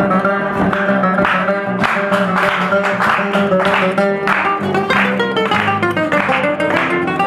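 Acoustic guitars playing the instrumental interlude of a milonga: a plucked melody over strummed chords in a steady, even rhythm, with no singing.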